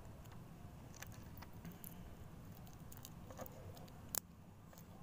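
Faint, scattered clicks over low background hum. The sharpest click comes about four seconds in.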